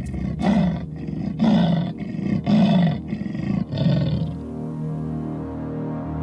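Leopard giving its sawing territorial call: a run of short, deep strokes about two a second that stops about four seconds in. Soft, sustained music follows.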